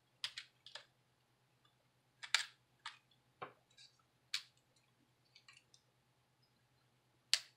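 Scattered small, sharp clicks and ticks of a metal precision screwdriver tip and plastic smartphone housing parts knocking and snapping as the back frame is taken apart, about a dozen irregular clicks, faint, over a low steady hum.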